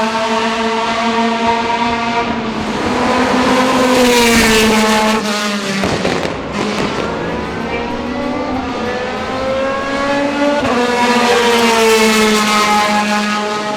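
Ferrari F430 GT2 race car's flat-plane V8 at racing revs. It pulls up through the revs, eases off with a short burst of crackles and pops about six seconds in, then accelerates hard again with a gear change near the end.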